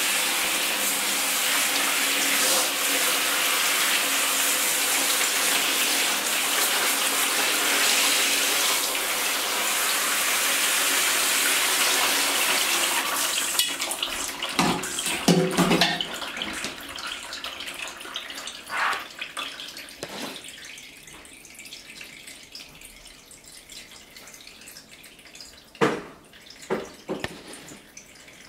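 A hand shower spraying water onto a mechanical keyboard in a plastic basin, a steady hiss that stops about halfway through. Water then drips and drains off the keyboard, with a few knocks, a cluster around the middle and two near the end.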